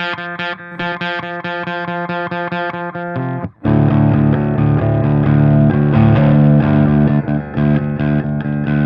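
Electric guitar played through a London City Bulldog valve amp head with EL34 power tubes, on its clean channel with a little breakup. Short choppy chords for about three and a half seconds, a brief stop, then louder chords left ringing.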